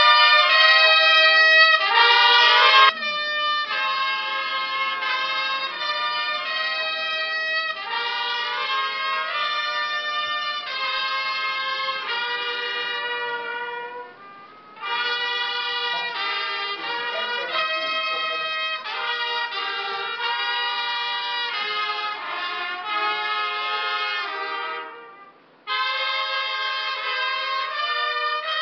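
Brass band of trumpets playing a slow tune in sustained chords, loudest in the first few seconds. The music breaks off briefly twice, about halfway and near the end, then starts again.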